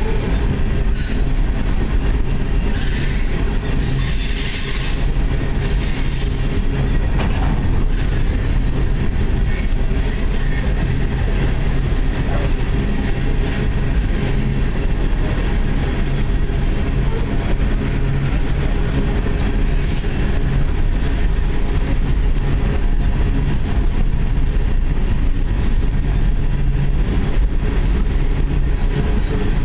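Coal train of aluminium coal cars rolling past close by: a steady heavy rumble of steel wheels on the rails, with spells of high-pitched wheel squeal, strongest a few seconds in and again about twenty seconds in.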